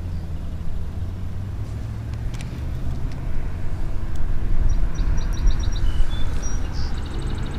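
Steady low rumble of wind and moving water, as heard outdoors on a river, with a few short, quick high chirps about five seconds in.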